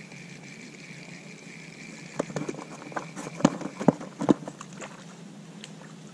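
A run of sharp knocks and clicks, about two a second, starting about two seconds in, while a bluegill is hooked and reeled to the bank on a light spinning rod.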